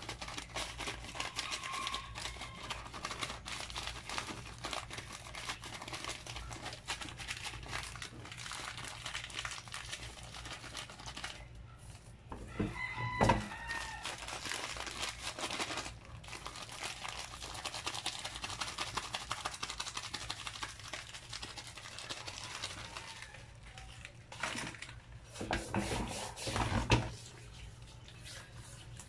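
Plastic bag crinkling and rustling as brown sugar is shaken out of it onto a raw whole chicken, then the light squelch of hands rubbing the seasoning into the wet chicken near the end. A short pitched sound cuts in once about halfway through, the loudest moment.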